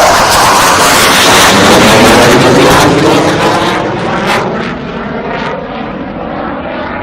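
F/A-18 Hornet fighter jet's twin turbofan engines roaring past on takeoff, very loud for the first few seconds. The jet then fades as it climbs away, its pitch falling.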